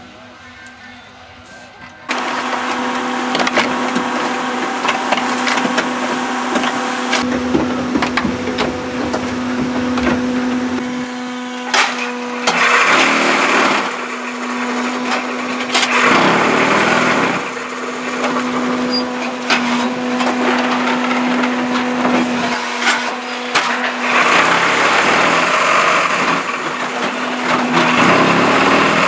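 Pessa S1000 cement brick and block machine running: a steady machine hum that starts suddenly about two seconds in, with clicks and clatter and several loud rattling spells of one to three seconds each.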